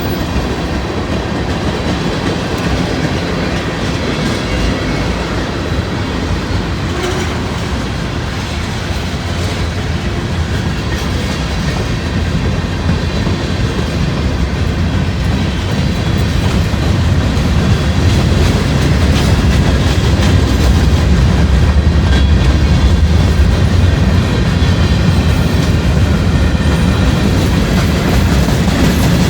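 Freight cars of a long train rolling past slowly, their wheels clicking over the rail joints over a steady low rumble. The rumble grows somewhat louder in the second half.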